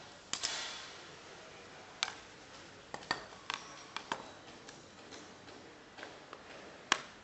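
Irregular sharp clicks and taps from a roller shade's fabric and plastic bottom bar being handled on a metal worktable, with a short rustle about half a second in. The loudest tap comes just before the end.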